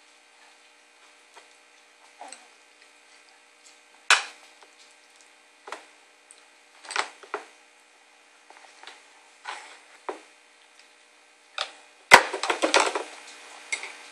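A spoon and a glass bowl knocking and clattering against a plastic high-chair tray, handled by a baby: single sharp knocks every second or two, then a quick rattling run of knocks about twelve seconds in.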